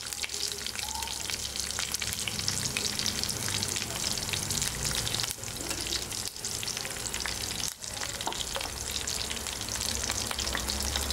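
Curry leaves, green chillies, dried red chillies and whole spices sizzling in hot oil in a stainless-steel pan, with a steady fine crackle: the tempering (tadka) stage of a curry.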